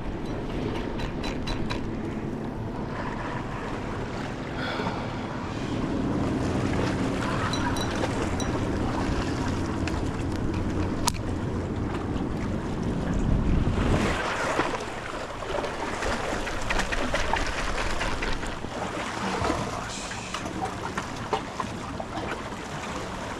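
Waves washing against the inlet's jetty rocks, with wind buffeting the microphone. A low steady hum runs through the middle and fades out about fourteen seconds in, where the surf swells louder.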